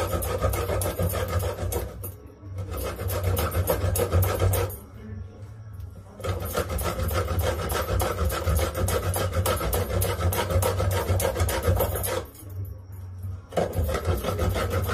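Dried coconut (copra) being grated by hand on a grater: rapid, even rasping strokes, with short pauses about two seconds in, around five seconds in and again around twelve seconds in.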